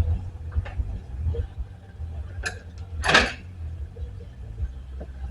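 Hand wrench clinking and scraping on a line fitting as it is fitted and tried: a few light metal clicks and a short scrape about three seconds in, over a low rumble.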